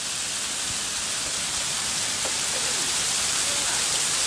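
Heavy hailstorm, with hail and rain pelting down in strong wind. It makes a dense, steady hiss that grows slightly louder.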